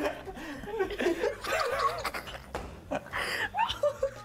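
People laughing, with wavering laughs about a second in and a breathy burst a little after three seconds, in reaction to a bad-tasting snack.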